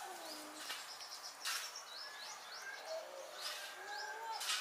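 Wild birds calling: a run of short high chirps, with lower drawn-out cooing calls now and then.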